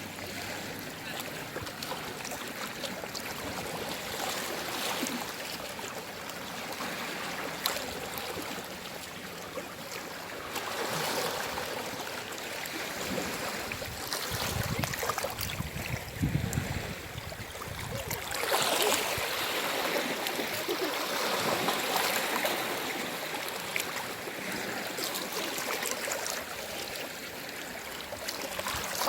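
Gentle sea waves washing and lapping at the shore, a steady wash that swells louder in surges through the middle, with a deeper rumble as one wave comes in.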